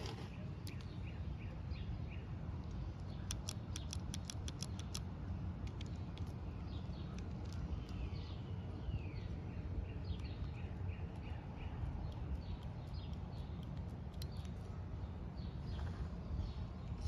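Many short, quick bird chirps over a steady low rumble. About three seconds in comes a run of sharp clicks, roughly five a second, lasting under two seconds.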